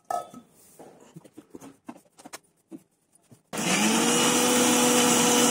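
A few light clicks and knocks, then about three and a half seconds in a kitchen mixer grinder switches on with a loud, steady whir. Its pitch rises briefly as the motor comes up to speed, then holds steady as it grinds the chutney ingredients with a little water.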